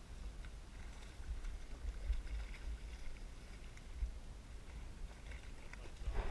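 Low, gusty wind rumble on the microphone, with faint splashing from a hooked fish thrashing at the water's surface beside the boat.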